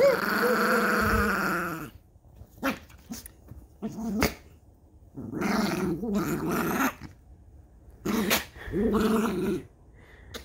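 Small long-haired dog growling during rough play while a person rubs its belly. A long growl opens, then comes a pause with a few sharp clicks, then several shorter growls about halfway through and again near the end.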